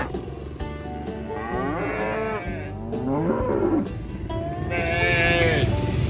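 Cattle in a herd mooing: several long, overlapping moos, with the loudest one near the end.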